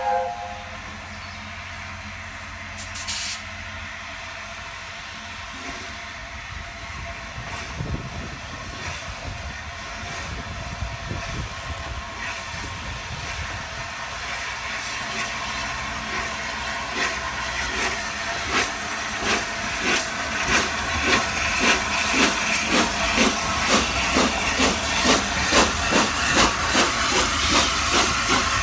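Steam locomotive whistle cutting off at the very start, then a steady hiss of steam. From about halfway the exhaust beats of the LNER Peppercorn A1 Pacific No. 60163 Tornado come in, a regular chuff about twice a second that grows louder as the engine nears.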